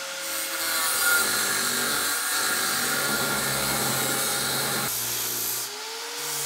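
Angle grinder with an abrasive cutoff wheel cutting through cast iron, a harsh grinding over the motor's steady whine. The cutting stops abruptly about five seconds in, and near the end a grinder's whine rises again as it spins up.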